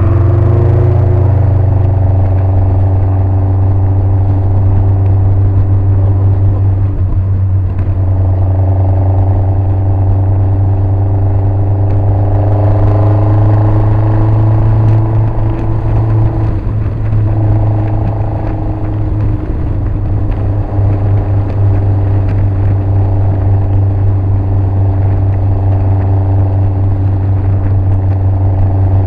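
Open-top kit car's engine droning steadily at dual-carriageway cruising speed, mixed with road noise. Its note shifts slightly in pitch as the speed changes, with a brief dip about seventeen seconds in.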